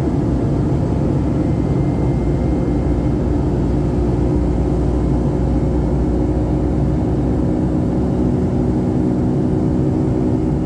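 Steady in-flight cabin drone of a Boeing 757-200 heard from inside the cabin: jet engine and airflow noise with a few steady low hums running through it.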